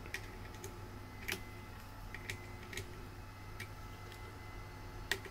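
Small scattered clicks and ticks of a screw and fingertips against 3D-printed plastic hard-drive mounts, about a dozen light taps at uneven intervals, the sharpest about a second in and just before the end.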